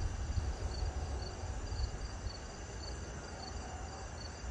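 Crickets chirping at night, a short high chirp repeating about twice a second, over a steady low rumble.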